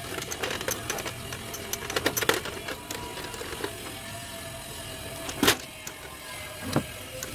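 Irregular clicks and light knocks of small parts and tools being handled while working on an opened audio unit, with one louder knock about five and a half seconds in.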